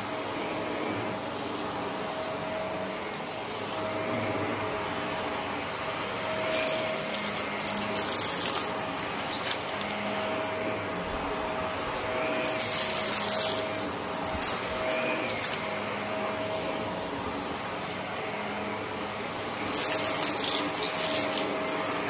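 Shark vacuum cleaner running steadily over a thick shag rug, its motor holding a steady hum. Three times, a few seconds apart, a crackling hiss rises over it as grit and debris are sucked up into the dust cup.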